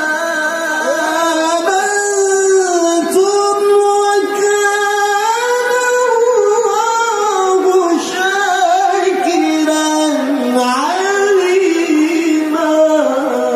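A man reciting the Quran in the melodic tilawah style into a microphone, drawing out one long, ornamented melismatic phrase: held notes with slow pitch glides that climb to a peak near the middle and then sink lower toward the end.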